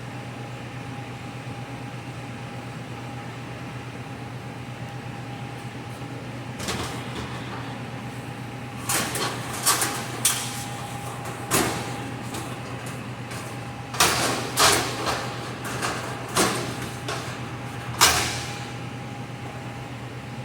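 Sheet metal clanking and scraping in about ten sharp bursts, most of them in the second half, over a steady machine hum.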